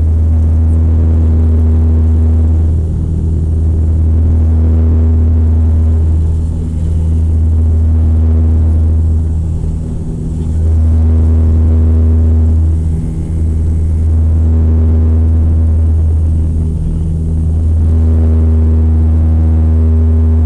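Electronic background music with a deep, sustained bass and synth chords that change in a repeating pattern every couple of seconds.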